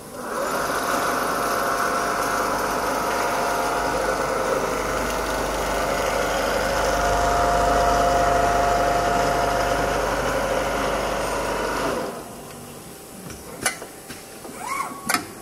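Richpeace computerized template sewing machine stitching at high speed, a steady dense mechanical running sound. It stops abruptly about twelve seconds in, followed by a couple of sharp clicks.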